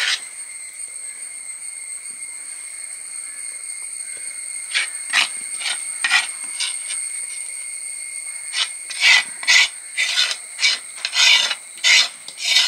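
Metal spoon scraping thick masala gravy off the inside of a terracotta clay pot lid, in short scraping strokes: a few scattered at first, then a quick run of them in the second half.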